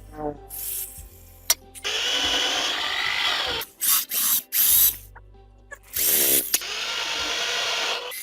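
A handheld power tool runs in several bursts, the longest about two seconds, with short gaps between them and a sharp click about one and a half seconds in.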